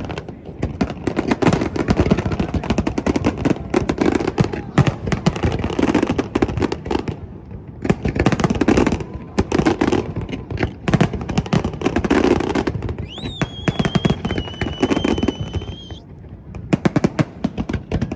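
Fireworks display going off in rapid, dense succession: crackling bursts and booms. A high, steady whistle sounds for about three seconds past the middle.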